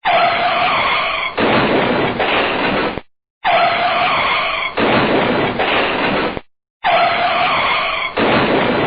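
Car braking hard with the tyres skidding, a noisy screech with a squealing edge, played three times in a row, about three seconds each with a short silence between.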